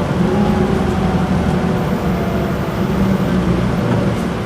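Isuzu Erga city bus's diesel engine and torque-converter automatic drivetrain running as the bus drives along, heard inside the cabin: a steady low hum with a faint higher tone above it.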